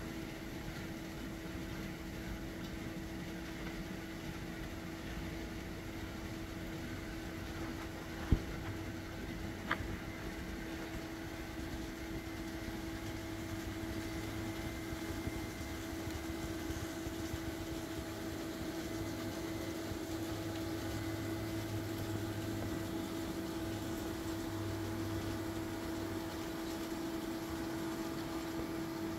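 Steady mechanical hum with a low rumble that swells and fades, broken by two sharp clicks about eight and ten seconds in.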